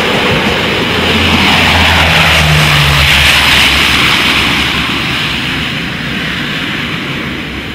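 Bombardier CL-415 water bomber's twin turboprop engines and propellers passing low, swelling to their loudest about three seconds in and then fading away.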